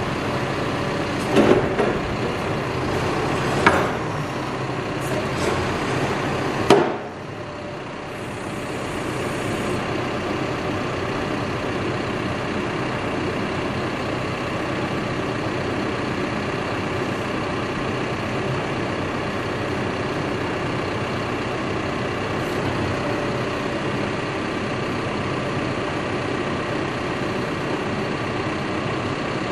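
Cat backhoe loader's diesel engine running steadily during start-up checks, with three sharp knocks in the first seven seconds.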